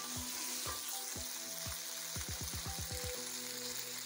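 Minced meat and chopped tomatoes sizzling as they fry in oil in a pan, with background music under it that has a quick run of short falling notes about two seconds in.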